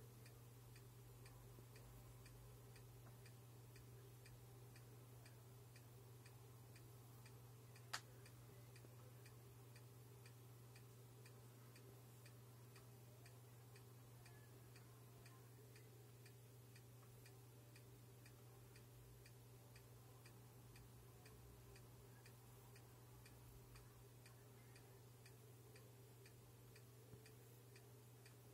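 Near silence: room tone with a faint steady low hum and faint, evenly spaced ticking, broken by a single sharp click about eight seconds in.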